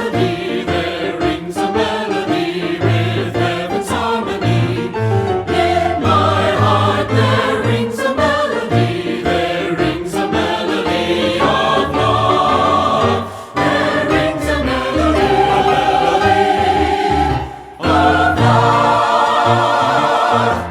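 Choir singing a worship song over instrumental backing with a steady bass. The music briefly drops away twice in the second half.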